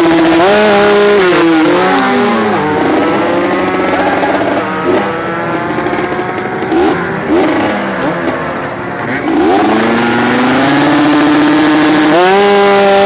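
Kawasaki Ninja RR 150 two-stroke engine revving at a standstill. It starts held at high revs, drops and wavers up and down with throttle blips through the middle, then climbs again near the end and is held high.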